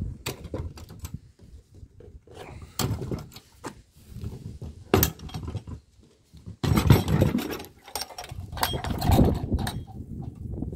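Metal latch clips on a Schreder Altra street-light fitting being snapped open and its clear ribbed plastic cover lifted off: a run of clicks and knocks, with a sharp snap about five seconds in and louder plastic clatter around seven and nine seconds in.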